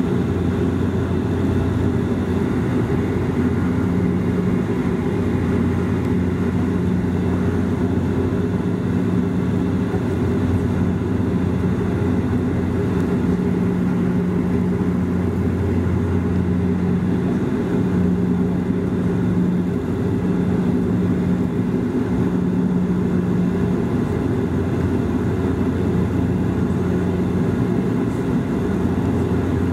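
Cabin noise of a Bombardier Dash 8-Q400 turboprop in flight: the steady drone of its engines and propellers. A low propeller hum weakens about halfway through and returns near the end, and a higher hum comes and goes.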